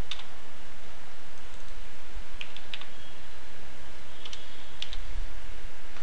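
A few faint clicks from a computer keyboard and mouse, spaced out between about two and five seconds in, over a steady background hiss.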